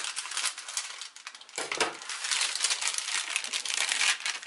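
Plastic wrapping crinkling as it is snipped with scissors and peeled off a roll of pie dough, with many quick crackles.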